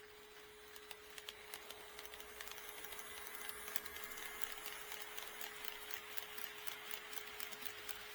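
HO-scale model train running on KATO Unitrack, its wheels clicking rapidly over the rail joints, growing louder over the first few seconds as it comes near. A steady high hum runs underneath.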